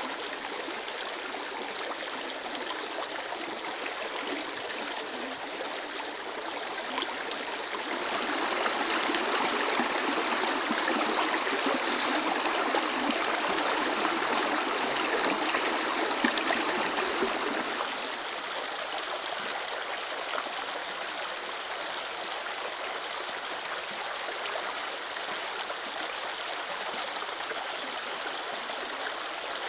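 Small shallow stream running and trickling over stones as a steady rushing hiss. It gets suddenly louder and brighter for about ten seconds in the middle, then drops back to the earlier level.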